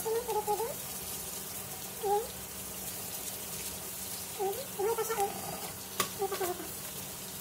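Tap water running steadily into a stainless-steel sink while a live crab is held and rinsed under the stream. Brief wavering voice-like calls come and go every few seconds, and there is a sharp click about six seconds in.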